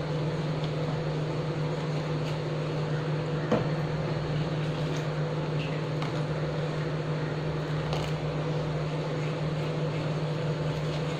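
A steady low mechanical hum, over which a ladle stirs thick green pea kheer in a kadai, with a couple of faint taps of the ladle against the pan.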